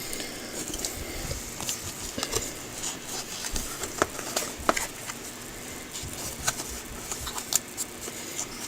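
Small plastic gashapon capsule being handled and opened by hand: scattered light clicks and taps of plastic.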